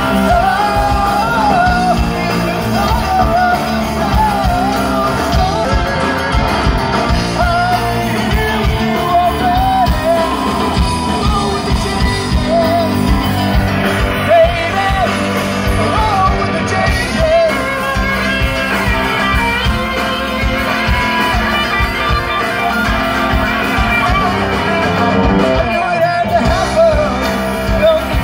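Live rock band playing through a stage PA, with electric guitars and drums under a lead singer's voice.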